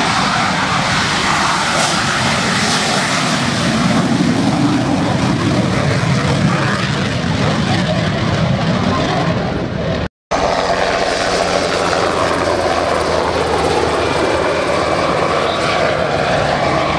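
BAE Hawk jet trainer's turbofan running at high power as it takes off along the runway. After a brief dropout about ten seconds in, a Black Hawk helicopter flying low past with a steady rotor drone.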